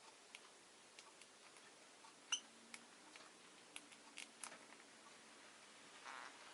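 Quiet room with scattered small clicks and ticks from a peach-faced lovebird moving about its cage. One brief high chirp comes about two seconds in, and a faint low hum runs through the middle.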